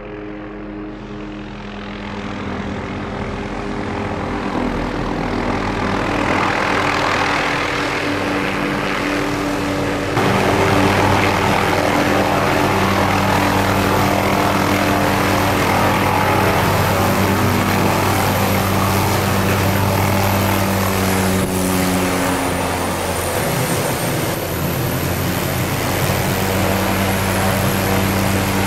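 McDonnell Douglas MD 500D (Hughes 500) helicopter with its five-blade main rotor beating steadily over a high turbine whine. It grows louder as it comes in low over the pad to land, then keeps running on the ground.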